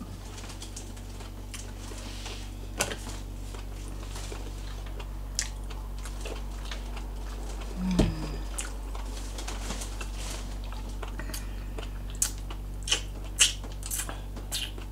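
Close-miked eating sounds: chewing with scattered wet mouth clicks and smacks over a steady low hum, and one louder knock about halfway through.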